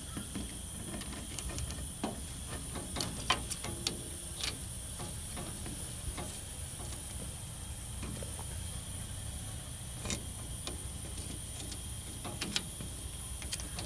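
Scattered light clicks and ticks of a black aluminium 10AN hose fitting being handled and threaded onto the oil filter adapter, over a steady low hiss and hum.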